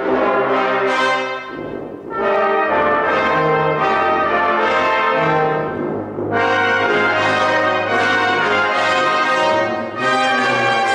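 Brass band of trumpets, trombones, euphonium and tubas playing a piece together in full chords, with short breaks between phrases about two and six seconds in.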